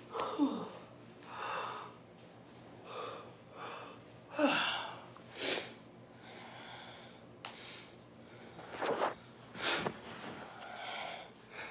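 A woman's short breathy vocal noises and murmurs, about one a second, some dropping in pitch, from someone who thinks she is coming down with a cold.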